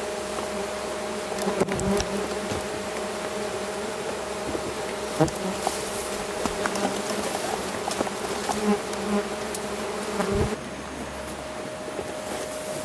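Wasps buzzing steadily around their nest, with a few sharp knocks and taps; part of the buzz drops away near the end.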